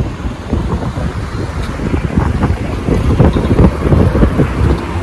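Wind buffeting the camera's microphone in an uneven low rumble, over city street traffic; the gusts grow louder about three seconds in.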